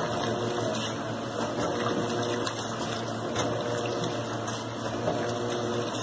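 Electrolux LT15F top-loading washing machine agitating: the agitator churns clothes through soapy water with steady sloshing and splashing over a low motor hum, a motor tone coming and going in stretches of about a second.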